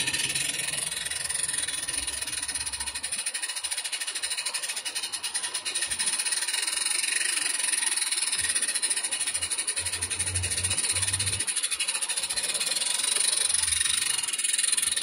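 Roundhouse 16mm-scale live-steam model of a Vale of Rheidol tank locomotive running: a rapid, even patter of small exhaust beats over a steady hiss of steam.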